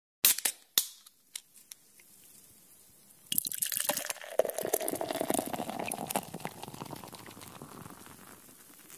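A few sharp clicks, then a sudden liquid fizzing and hissing about three seconds in that slowly fades away.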